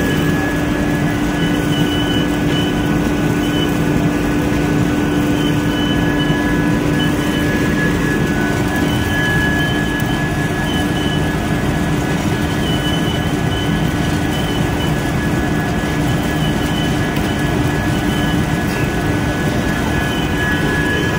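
Vertical ring die wood pellet mill running steadily under load, a loud even machine noise with a low hum and a high whine, a fainter higher whine coming and going, while pellets pour from its chute into a steel wheelbarrow.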